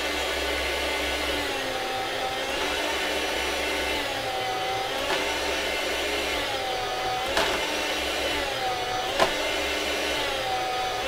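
Chef's Choice 609 electric meat slicer running steadily with its blade spinning. Its hum sags briefly in pitch every couple of seconds as the blade cuts through a slice of hard salami. A few sharp clicks come in the middle and later on.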